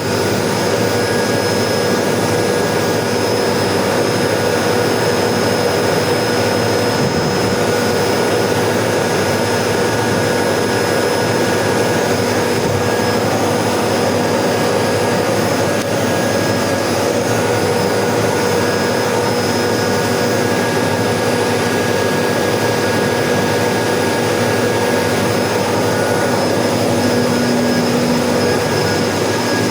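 Water pump running, heard as a steady drone: a rushing noise with several held tones, and soft gurgling of water.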